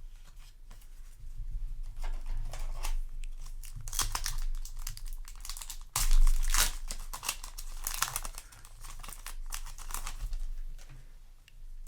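Foil booster-pack wrapper crinkling and being torn open by hand, a dense run of crackling rustles, loudest about six seconds in.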